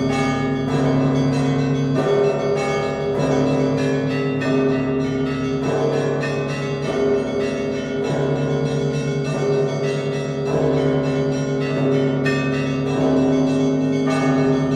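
Russian Orthodox church bells ringing a festal peal (zvon). Rapid strikes of smaller bells ring over deeper bells, which are struck again every second or two, and all of them sound together continuously.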